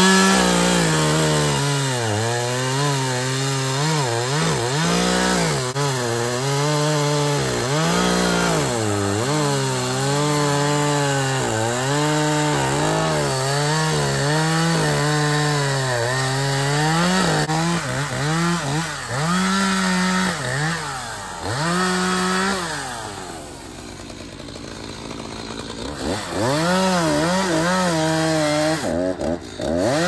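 Echo CS-590 two-stroke chainsaw cutting through a fallen tree trunk, its engine pitch rising and falling over and over as the chain bites and frees in the wood. About three-quarters of the way through it drops quieter for a few seconds, then revs back up into the cut.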